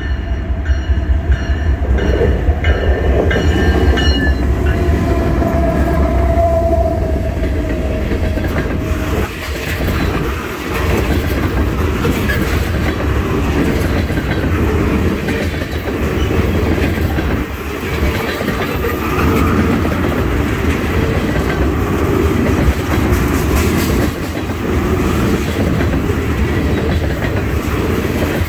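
Norfolk Southern diesel freight locomotives pass with a heavy engine rumble, and a repeated pitched ringing sounds in the first few seconds. About ten seconds in the engine sound drops away, leaving the steady clickety-clack and rolling noise of the oil train's tank car wheels on the rails.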